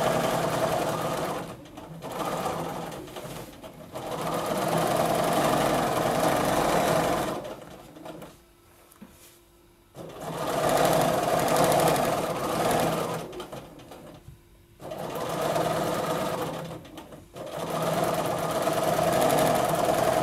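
Bernina sewing machine with its BSR stitch-regulator foot stitching in free-motion quilting, running in bursts of a few seconds with short stops between, the longest stop about eight seconds in.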